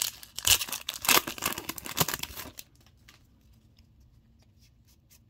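Foil wrapper of a Digimon Card Game booster pack being torn open and crinkled, a burst of crackling tearing that stops after about two and a half seconds.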